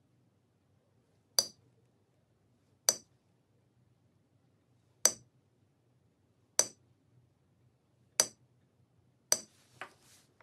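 Small hammer tapping a centre punch into a thin metal cutout on a steel bench block, marking drill-hole positions. Six sharp metallic taps, each with a brief ring, roughly one and a half to two seconds apart, then a fainter tap near the end.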